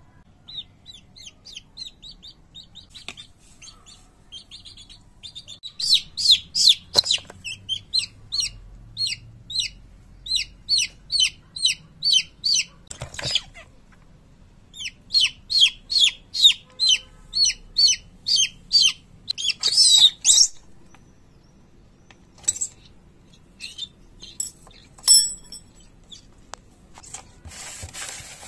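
Baby chick peeping loudly and repeatedly: short, high, falling peeps about three a second, in two long runs that then thin out to a few scattered peeps. A short scuffling noise comes near the end.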